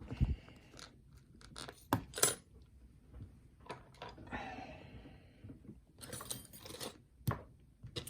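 Lock pick and tension wrench working the pins of a challenge lock: scattered small metal clicks and scrapes, with a longer scrape about four seconds in and a short rattle around six seconds in.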